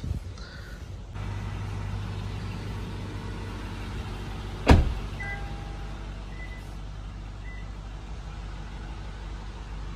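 A car door shutting with one heavy thud about halfway through, over a low steady hum inside the vehicle; a few faint short beeps follow it.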